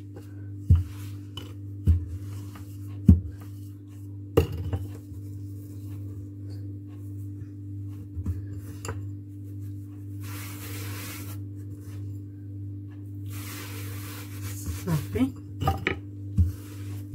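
Wooden rolling pin worked back and forth over sugar-sprinkled puff pastry on a marble counter: a knock about once a second at first, a sharper knock about four seconds in, and a cluster of knocks near the end. Two stretches of soft gritty rubbing fall in between.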